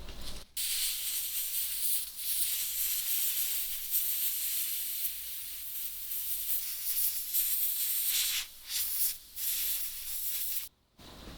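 Hiss of a spray jet, in long spurts with two short breaks near the end, cutting off abruptly.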